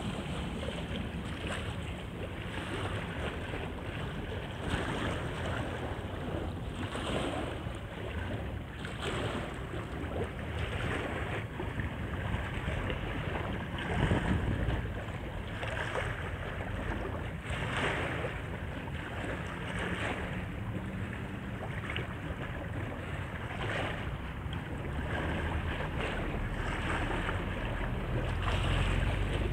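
Wind buffeting the microphone over splashing river water, with a low steady boat-engine rumble underneath; one louder burst about halfway through.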